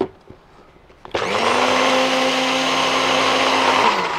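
After a short knock, an electric blender starts about a second in and runs at a steady high speed for about three seconds, blitzing chimichurri, then switches off and winds down near the end.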